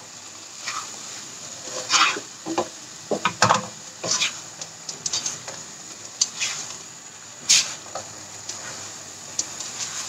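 Slotted spatula stirring and scraping fried tempe cubes in sambal around a nonstick wok, giving irregular scrapes and knocks against the pan, over a steady sizzle.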